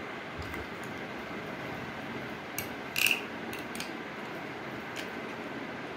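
Metal spoon stirring juice in a glass tumbler, clinking against the glass a few times, the loudest clink about three seconds in with a short ring, over a steady hiss.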